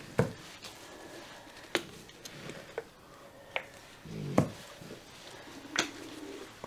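Handling noises while acrylic paint is squeezed from plastic bottles onto a canvas: about six separate sharp clicks and light knocks, spread unevenly through the stretch.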